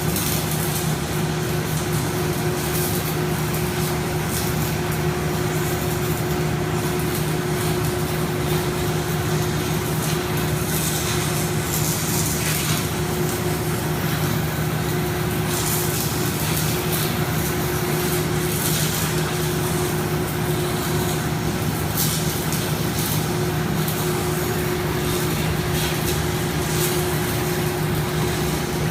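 Flux-cored wire welding arc hissing with irregular crackles during a pad weld, over the steady hum of smoke collectors.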